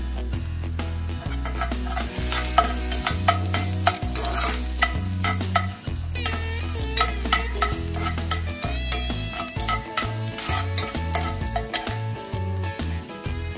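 Chopped garlic sizzling in hot fat in a cast-iron pan, stirred and scraped with a metal slotted spoon, over background music with a steady bass line.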